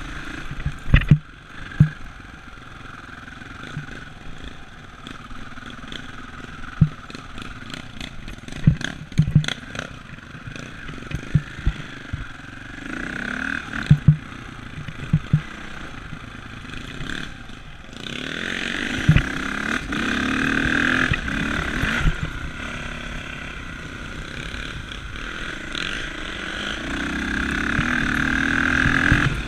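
Dirt bike engine running while ridden, with many sharp knocks from the bike over rough ground. The engine gets suddenly louder about two-thirds of the way in and climbs again near the end.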